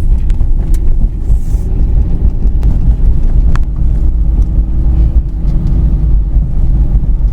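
Steady low road rumble of a car driving, heard from inside the cabin, with a faint steady hum joining about halfway through and a few light clicks.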